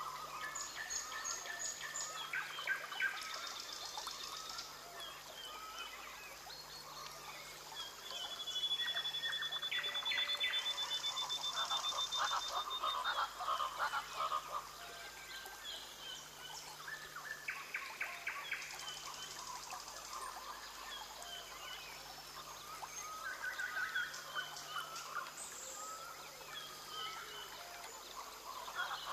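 Rainforest chorus of frogs and other calling creatures: many overlapping chirps, croaks and rapid trills, with one long high trill held for several seconds about a third of the way in.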